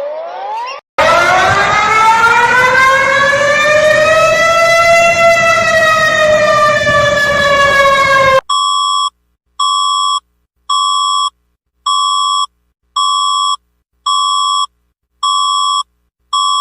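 A sequence of alarm sounds. It opens with short rising siren whoops that cut off about a second in. Next comes one long siren wail that climbs and then slowly falls away over about seven seconds, and after that a high electronic alarm tone beeps eight times, about once a second.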